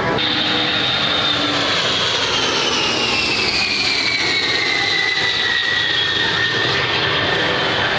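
Four-engine E-3 Sentry AWACS jet flying past: a steady jet rumble with a high turbine whine that falls slowly in pitch as the aircraft goes by.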